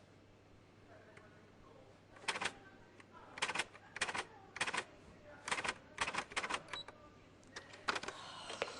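Typewriter keys being struck in an irregular series of sharp clacks, starting about two seconds in, some singly and some in quick runs of two or three.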